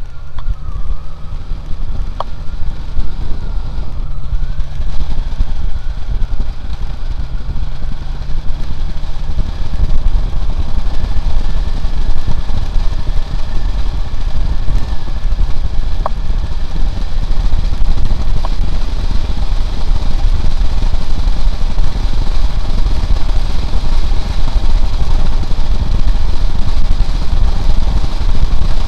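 Honda CB750's inline-four engine running at road speed, heard from the rider's helmet with heavy wind rumble. It grows louder about ten seconds in.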